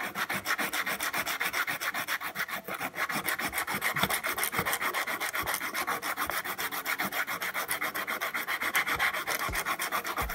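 Abrasive pad rubbed quickly back and forth around the cut end of a copper pipe, a fast, even scratching. The end is being smoothed inside and out so that a solder-ring coupling will fit.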